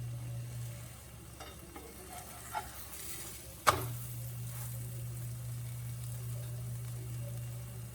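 Dough pastry frying in a pan of oil and ghee over a high flame, a faint steady sizzle. A low steady hum drops out about a second in and comes back with one sharp click near the middle.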